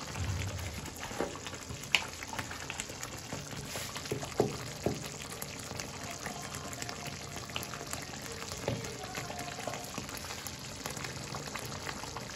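Liquid boiling hard in a steel kadhai, a steady bubbling hiss. A few sharp clinks of a metal ladle against the pan come through, the loudest about two seconds in.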